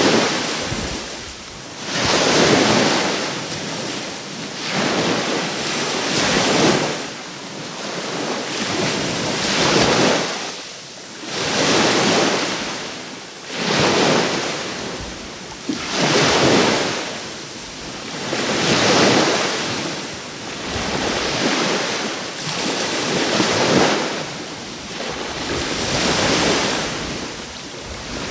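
Sea waves washing onto the shore one after another, each one swelling up and falling away about every two to three seconds.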